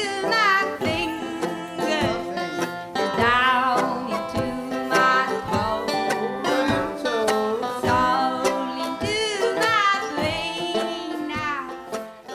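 Background music: a song with plucked strings and a singing voice, at a steady loudness.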